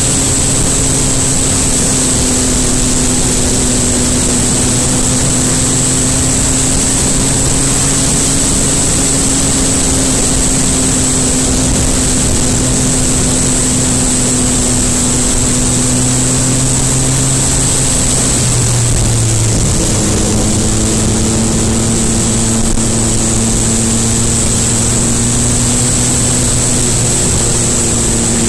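MV Agusta Brutale 800RR's three-cylinder engine running at a steady pace under a dense rush of noise. Its note drops in pitch about two-thirds of the way through, then holds steady.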